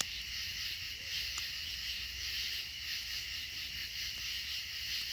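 Steady chorus of night insects, such as crickets, trilling high and even over a low background rumble, with one faint click.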